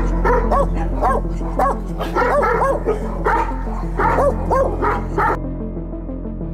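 A dog barking rapidly and repeatedly, two or three short yappy barks a second, stopping suddenly about five seconds in, with background music underneath.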